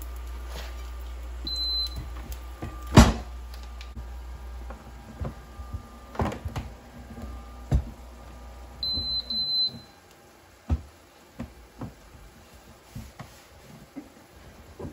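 Electric smokeless grill's control panel beeping, once about a second and a half in and twice near the middle, with the grill's steady low hum cutting off just after the double beep as it is switched off. A sharp knock about three seconds in and lighter clatters of spatula and plate on the counter.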